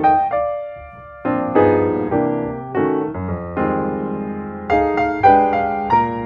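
Piano chords played at a slow tempo, each struck and left to ring before the next, with a few higher melody notes over them.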